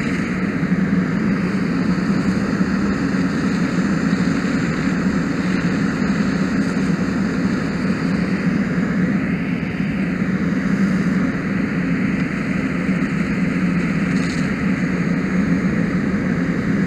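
Fire hose nozzle spraying water in a steady, loud rush, with a steady low hum underneath.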